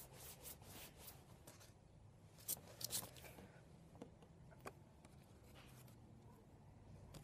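Sheet of origami paper being handled and folded: faint rustles and small crackles of paper, with a couple of sharper crinkles about two and a half and three seconds in.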